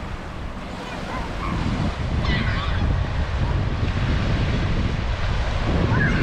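Ocean surf washing onto a sandy beach, with wind buffeting the microphone; the rushing grows louder about two seconds in.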